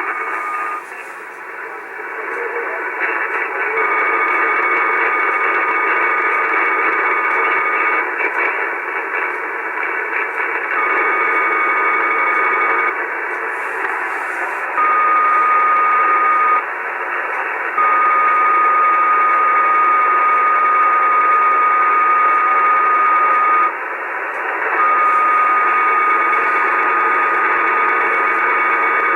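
Shortwave receiver on the 75-meter band in lower sideband: band-limited static with an unidentified interference signal of steady tones that switch on and off every few seconds, like a beacon, drowning out the band.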